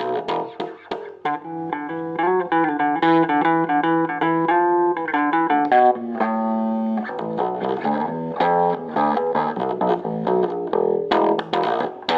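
Boston electric bass guitar played through a cheap small practice combo amp: an improvised run of single notes with a slightly distorted tone. There are sharp percussive attacks near the start and the end, and one note held for about a second in the middle.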